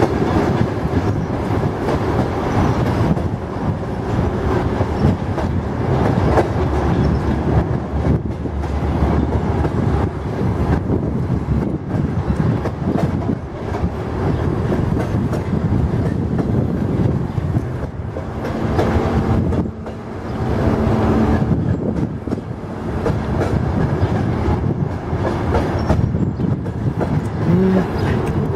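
Suburban electric train (elektrichka) running on the track, heard from aboard: a continuous rumble of wheels on rails with clickety-clack over the rail joints. A steady low hum joins in briefly about two-thirds of the way through.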